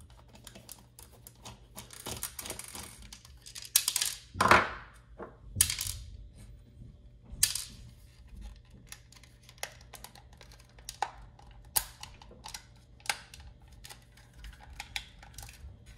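Small-parts handling while taking apart a plastic night light: a precision screwdriver working tiny tri-wing screws, the screws and driver clicking and clinking against the parts tray and desk, and the plastic housing knocking and scraping. Scattered sharp clicks and rattles, with a longer scrape about four seconds in.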